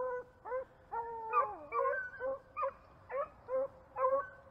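A pack of beagles baying on a rabbit's trail: a string of short, pitched bays about two a second, with one longer drawn-out howl about a second in.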